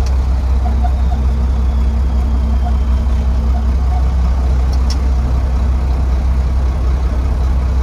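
Dump truck engine running with a steady low drone, heard from inside the cab while the truck is driven.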